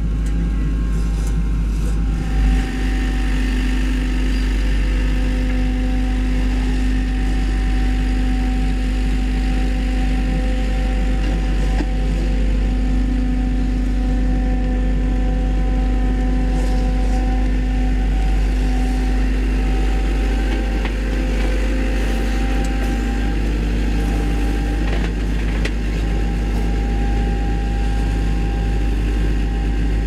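Diesel engines of heavy road-paving machinery running steadily with a low rumble, and a brief thump about two and a half seconds in.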